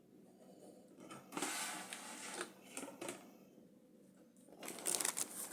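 Thin plastic LEGO baseplates being handled: a soft rustle about a second in, then dense crinkling and clicking rustles starting about a second before the end.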